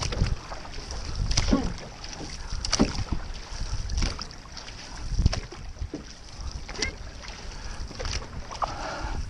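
Outrigger canoe paddles catching and pulling through the water in a steady crew rhythm, a stroke about every 1.3 seconds, with wind rumbling on the microphone.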